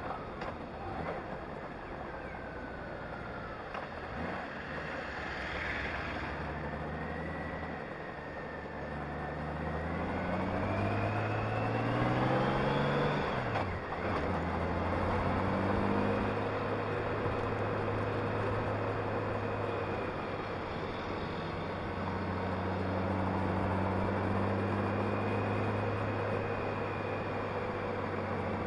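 Honda Gold Wing motorcycle engine running under way, with steady road and wind noise. About halfway through the engine note rises as the bike accelerates, drops sharply as it shifts up, then holds steady while cruising.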